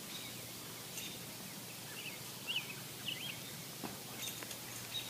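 Outdoor rural background: a steady high hiss with a few short bird chirps around the middle, and one faint click a little before the end.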